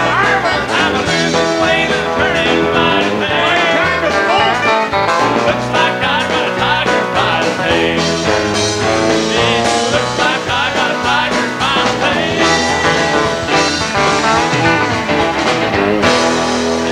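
Live country band playing a song with singing over acoustic and electric guitars and drums.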